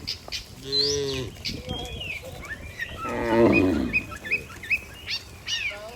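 Cattle mooing: a short moo about a second in, then a louder, longer moo around the middle. Small birds chirp throughout.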